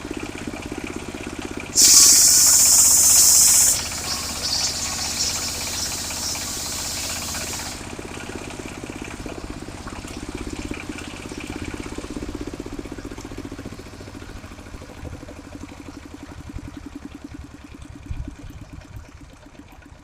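Engine of a mobile circular sawmill running steadily. A loud high-pitched hiss starts about two seconds in and lasts about two seconds, then trails off more quietly. The engine sound gradually fades lower toward the end.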